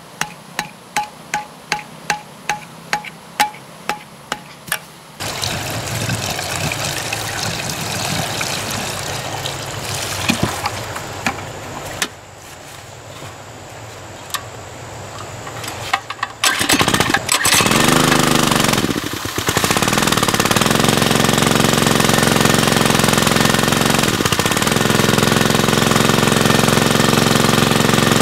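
A stone striking a bamboo stake, about two to three sharp knocks a second. Then a small gasoline water-pump engine starts up with a few sputters and settles into a steady, loud running while the pump throws a jet of water.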